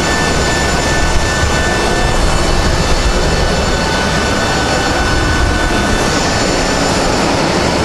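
Steady jet-turbine whine on an airport apron: several high, steady whistling tones over a deep rumble.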